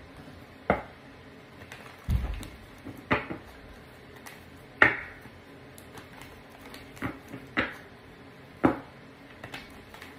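A deck of tarot cards shuffled by hand: sharp, irregular taps and slaps of the cards, roughly one a second, with a duller thump about two seconds in.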